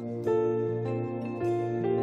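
Church worship band playing slow instrumental music: held chords that change a few times.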